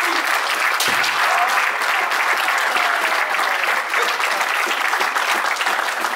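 A seated crowd of kendo practitioners applauding steadily.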